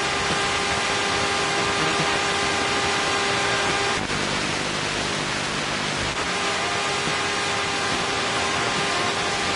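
Loud steady hiss of VHS playback noise from a heavily worn cassette, with faint steady tones running through it. From about 4 to 6 seconds in, a low buzz joins.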